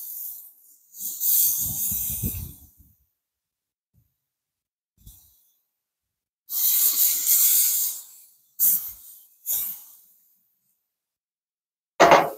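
Frozen bison burger patties sizzling as they are laid one after another on the hot grates of a gas grill, in several separate bursts of hiss. Near the end a cast iron skillet clanks twice on the grates.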